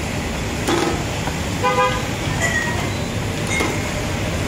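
Steady street traffic noise with one short vehicle horn toot a little before two seconds in. A sharp knock comes about a second in.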